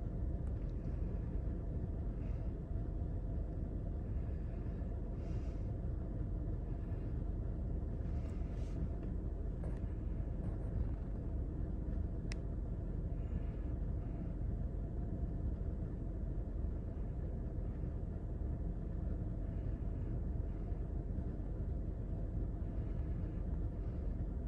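Steady low rumble inside a stationary car's cabin, with a faint single tick about twelve seconds in.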